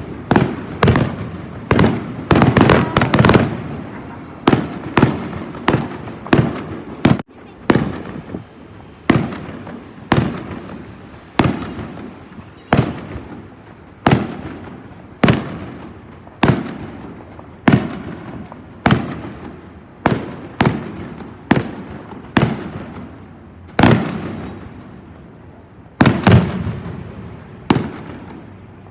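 Fireworks display: shells bursting one after another, each sharp bang trailing off over about a second. A rapid cluster of bursts comes in the first few seconds, then about one burst a second.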